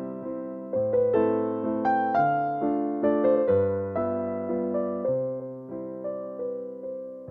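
Background music: a gentle electric piano melody, notes struck about twice a second and left to fade.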